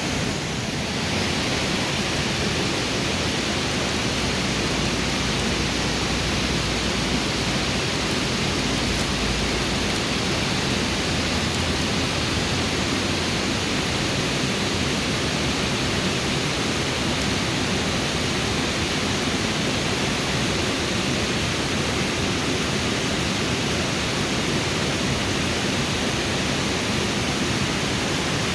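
Steady rush of flowing river water, an even hiss without any pattern, slightly brighter from about a second in.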